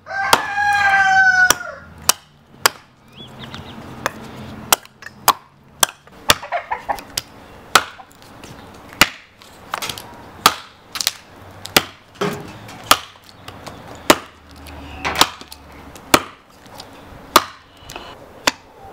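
A rooster crows loudly once at the start. Then a hand-forged bearded hatchet chops into logs in a steady run of sharp strikes, about one to two a second.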